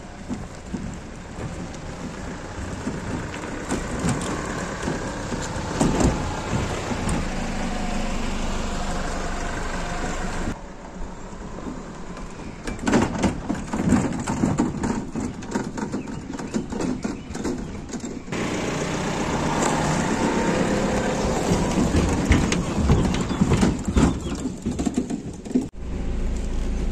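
Pickup truck with a camper driving slowly over a stony dirt track: engine running, with knocks and crackles from the tyres and body over the rough ground. Near the end it is heard from inside the cab as a low rumble.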